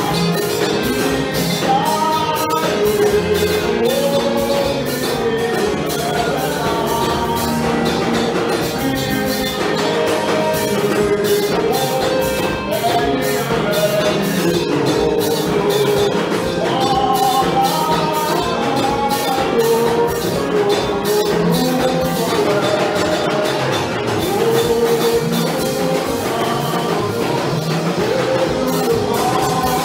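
Gospel praise singing: a man leads the song into a microphone with a choir behind him, over a steady beat of percussion.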